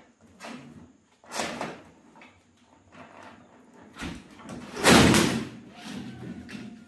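Handling noise of objects being knocked and dragged: a knock about a second and a half in, another about four seconds in, and a louder scraping clatter about five seconds in.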